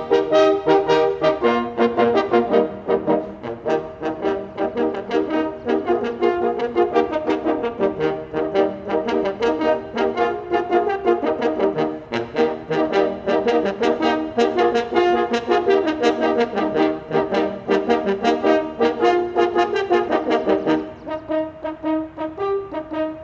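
An ensemble of parforce horns playing together in harmony, a lively run of short repeated notes. About two seconds before the end the playing thins to fewer, softer held notes.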